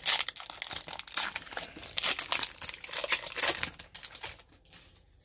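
Foil wrapper of a Pokémon TCG booster pack being torn open and crinkled by hand. It makes a dense crackle that is loudest at the start and dies away about four seconds in.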